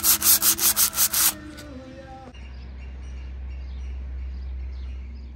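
Sandpaper rubbing back and forth over the epoxy barrier undercoat in quick, even strokes, about four a second, for a light sand before top-coating; the strokes stop about a second in. A faint low steady hum follows.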